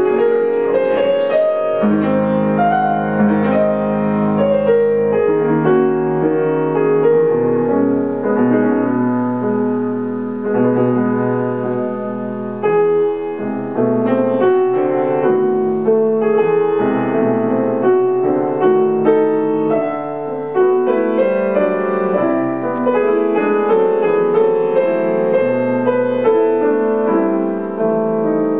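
Solo grand piano playing a contemporary concert piece, with chords and single notes ringing on over one another and changing every second or so.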